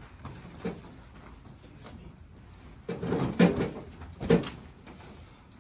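A chair being moved as someone gets up and another person shifts seats. There are two loud bursts of chair and furniture noise, one about three seconds in and a shorter one a little after four seconds.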